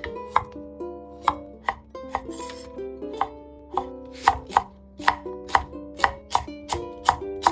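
Kitchen knife chopping on a cutting board in quick strokes, about two a second and slightly faster toward the end, with light background music underneath.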